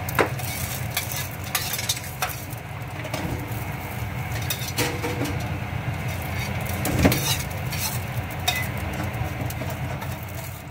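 Shrimp sizzling in a pan as they are stir-fried, a metal spatula clinking and scraping against the pan now and then, over a steady low hum. The loudest clink comes about seven seconds in.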